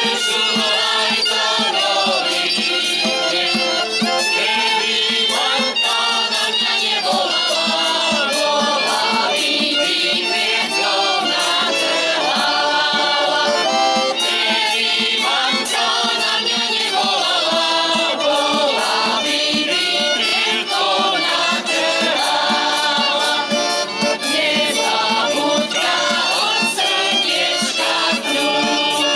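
Slovak folk choir singing a traditional song, accompanied by accordion and fiddle.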